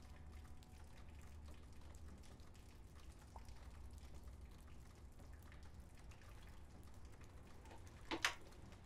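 Quiet, still ambience with a faint low hum and scattered soft ticks, then two sharp clicks in quick succession about eight seconds in.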